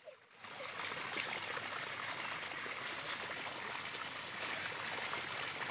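Muddy water flowing steadily along a narrow earthen channel, a continuous rushing that starts suddenly about half a second in.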